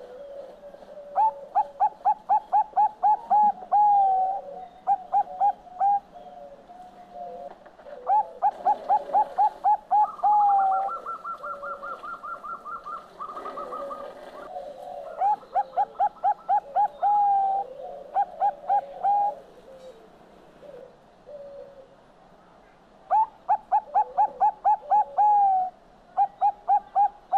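Zebra dove (perkutut bangkok) singing: about five loud phrases of rapid staccato coos, each ending in a longer drawn-out note, with short pauses between them. Fainter, lower cooing fills the gaps between phrases.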